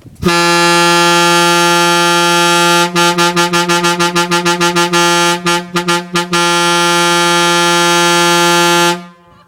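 Diesel truck's horn blasting: one long blast, then a fast stutter of short toots about eight a second, a few separate short blasts, and another long blast that cuts off suddenly.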